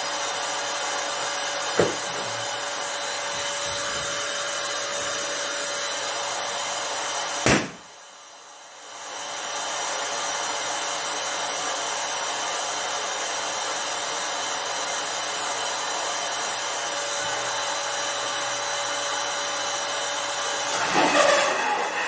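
Electric balloon inflator running with a steady motor whir. It stops with a click about seven and a half seconds in and starts up again about a second and a half later. Near the end there is louder, uneven handling noise from the balloons over the motor.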